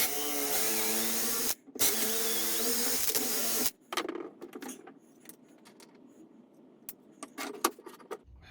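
Electric drill running twice, boring dowel holes in small pieces of wood, with a short pause about a second and a half in. After that come scattered clicks and knocks of wood and tools being handled, the sharpest near the end.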